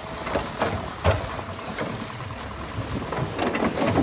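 Heavy vehicle's diesel engine running with a steady low rumble, with wind buffeting the microphone and scattered irregular knocks and clatter.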